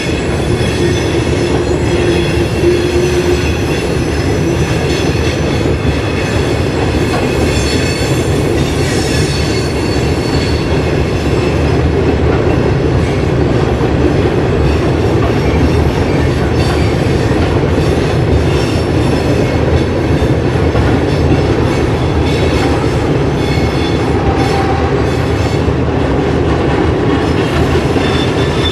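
Freight train cars rolling past: a steady, loud rumble with high wheel squeal and the clickety-clack of wheels over rail joints.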